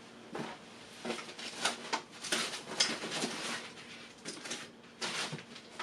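Off-camera rummaging through photo gear: irregular knocks, clatter and rustling as things are handled and moved.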